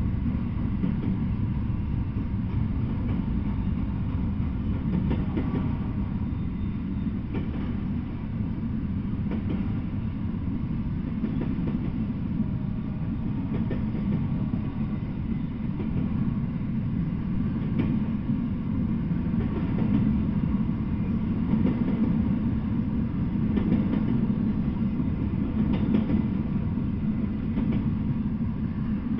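Double-stack intermodal freight train rolling past: a steady rumble of steel wheels on the rails with occasional faint clicks.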